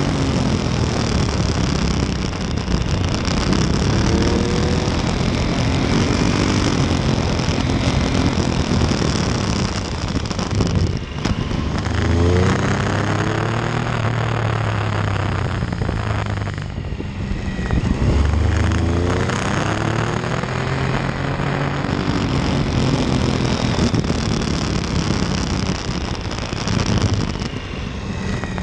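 Motorcycle engine running at speed, with rushing wind on the microphone. The revs climb again and again as the bike accelerates out of bends, and they drop briefly where the throttle closes, around eleven and sixteen seconds in.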